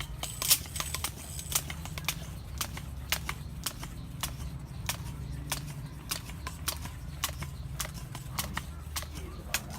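A run of sharp clicks or taps, about two a second and somewhat uneven, over a steady low hum.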